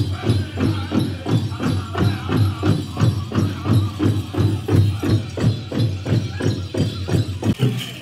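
Powwow drum beaten in a steady, even beat of about three strokes a second, with a grand entry song and the jingle of dancers' regalia over it.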